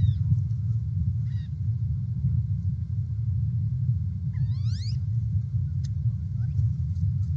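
Steady low rumble with one short rising bird call about halfway through.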